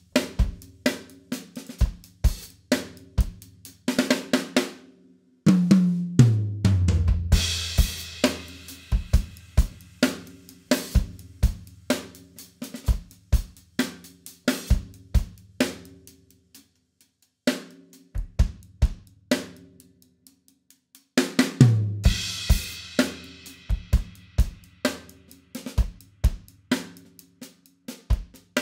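Acoustic drum kit played solo with sticks: a steady groove of drum strikes, broken about six seconds in by a tom fill falling in pitch into a cymbal crash. The playing thins out and nearly stops between about seventeen and twenty-one seconds, then comes back in with another crash.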